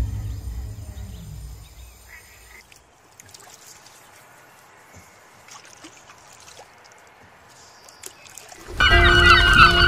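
A low rumble fades out over the first couple of seconds, leaving a quiet stretch. Near the end a flock of birds starts calling loudly, many rapid wavering calls over one another.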